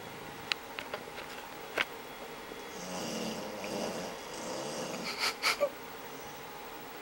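A dog snoring: one long, drawn-out snore through the middle. Several sharp clicks sound around it, the loudest a quick pair just after the snore.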